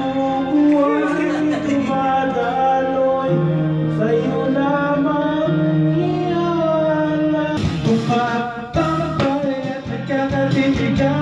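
Karaoke: a man singing into a microphone over a backing track played through loudspeakers.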